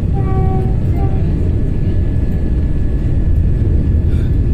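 Steady low rumble of the Vande Bharat Express electric train set running at speed, heard from on board. A short pitched tone sounds twice in the first second.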